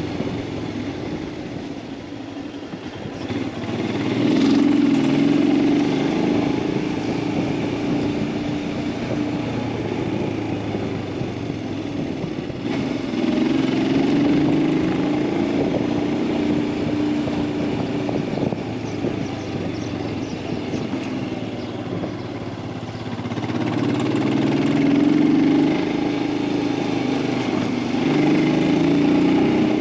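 Royal Enfield Himalayan 411's single-cylinder engine running under way, pulling harder and rising in pitch about four seconds in, again around thirteen seconds, and twice near the end, easing off in between.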